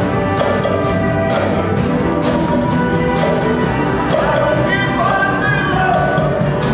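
Live band with a large saxophone and horn section playing together loudly, with drums.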